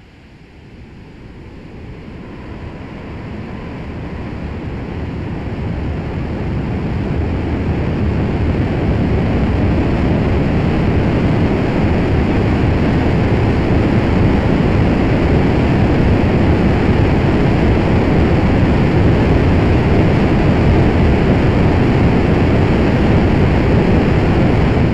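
Rocket engine ignition and burn: a noisy rush that swells over about ten seconds into a steady, deep rumble, then cuts off suddenly near the end.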